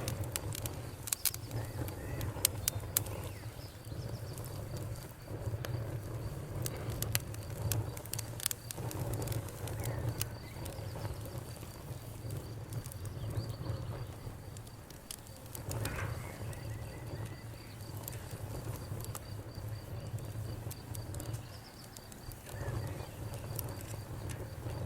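Campfire burning, with irregular sharp crackles and pops over a steady low rumble of the flames. A faint steady high trill runs under it.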